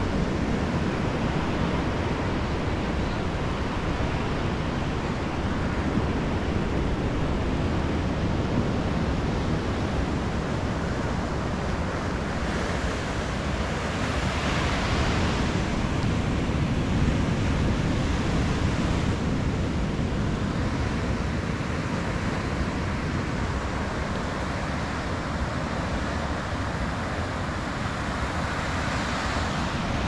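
Ocean surf breaking on a sandy beach: a continuous wash of waves that swells louder around the middle and again near the end. Wind rumbles on the microphone underneath.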